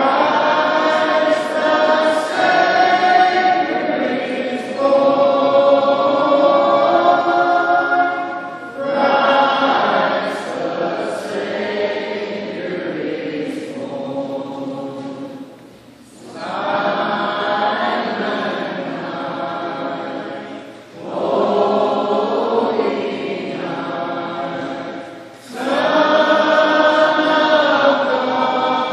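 Mixed choir of men and women singing together, in long phrases broken by brief pauses for breath.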